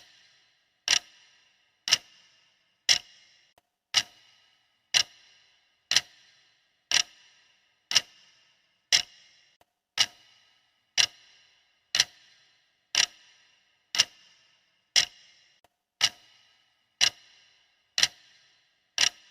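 Clock ticking, one sharp tick each second, each with a short ringing tail.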